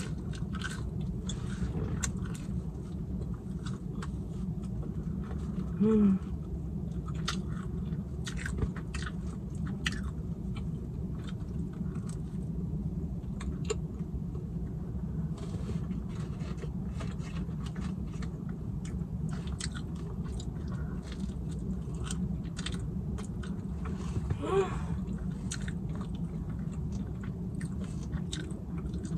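Close-up chewing and biting of pizza: many small wet mouth clicks and smacks through the whole stretch, over a steady low hum. Twice a brief pitched sound stands out, about six seconds in and again about twenty-four seconds in.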